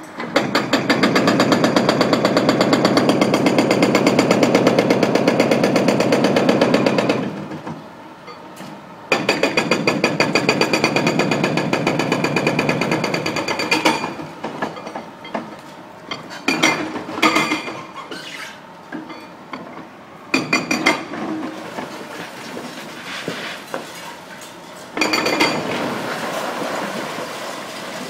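Demolition machinery hammering at the concrete of a building, a rapid steady run of blows lasting about seven seconds, then after a short pause a second run of about five seconds. Shorter scattered bursts of knocking follow.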